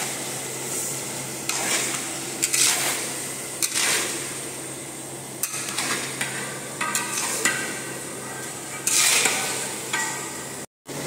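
Long metal spatula scraping and stirring chopped tomatoes and masala around a large metal kadai, a scrape about every second, over a steady low hum.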